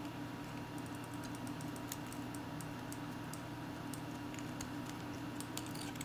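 Faint, irregular small ticks and clicks as fingers handle a plastic microswitch and a trackball's circuit board, seating the switch's pins in the board's holes.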